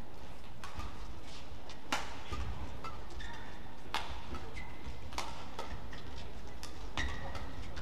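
Badminton rally: rackets strike the shuttlecock with sharp cracks every one to two seconds, and court shoes squeak briefly on the floor between shots, over a low steady arena background.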